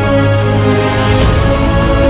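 Background theme music with sustained, layered tones.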